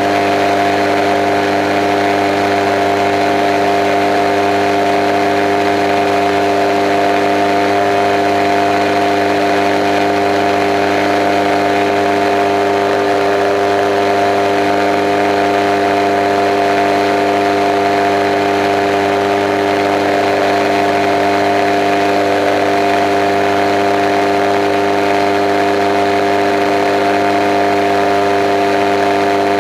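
Kolb Kolbra ultralight's engine and propeller droning steadily at constant cruise power, heard from inside the open-framed cockpit, with an even rush of airflow noise over the airframe. The pitch holds unchanged.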